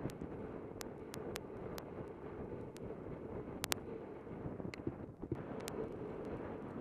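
Wind buffeting the microphone of a camera carried by a skier coming down a snowy run, with the rushing hiss of skis over snow and about ten scattered sharp clicks.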